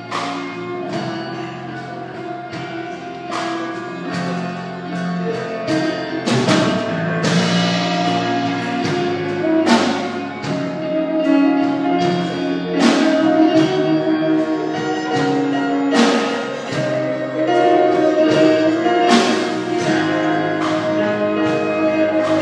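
Orchestral music with held, sustained chords, punctuated by a sharp struck blow about every three seconds.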